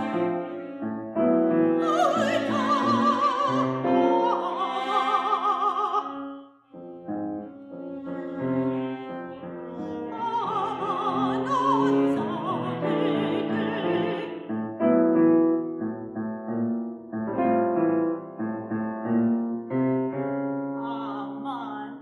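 Operatic soprano singing with wide vibrato over piano accompaniment in contemporary classical chamber music. Two long sung phrases, starting about two seconds and ten seconds in, separated by a brief break just before seven seconds.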